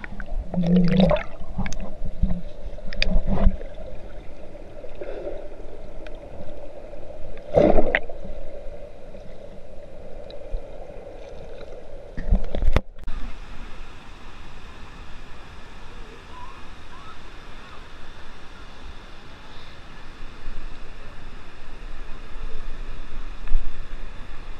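Muffled underwater sound through a camera's waterproof housing in a river: gurgling water and a few dull knocks against the housing. About halfway through it cuts abruptly to a steady, muffled rush of water.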